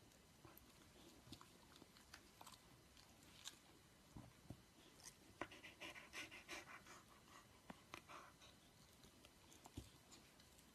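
Very faint mouth sounds from a dog being stroked: a few soft smacks and clicks, with a brief stretch of panting-like noise around the middle, over near silence.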